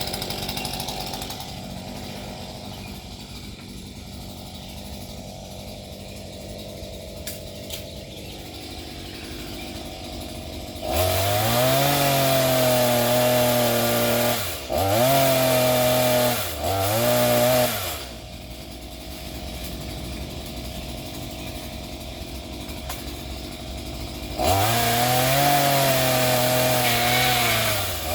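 Gas chainsaw idling, then revved up hard about a third of the way in and held at full speed in three bursts with brief dips. It drops back to idle, then revs up again near the end, cutting a tree limb.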